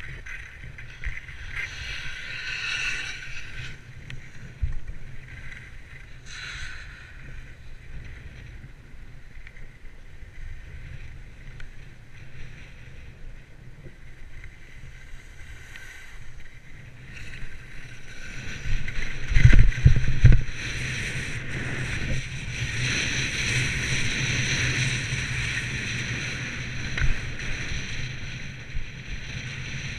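Skis sliding and scraping over packed snow, a continuous hiss that swells and fades with the turns, with wind rumbling on the microphone. A few heavy thumps of buffeting come a little past the middle, followed by a louder stretch of scraping.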